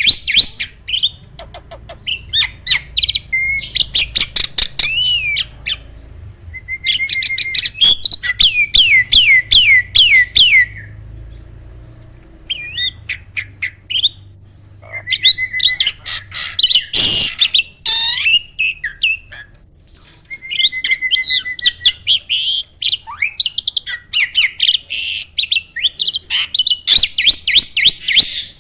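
Jalak starling singing a loud, fast song of sharp whistled notes and chattering runs, delivered in bursts separated by short pauses.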